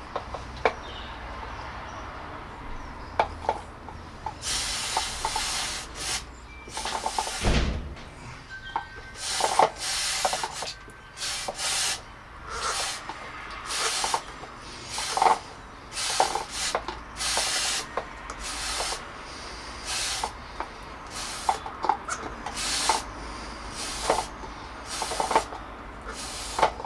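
Aerosol chain lube sprayed through a Speed Luber applicator onto a motorcycle drive chain, in many short hissing bursts about a second apart, with small clicks between them.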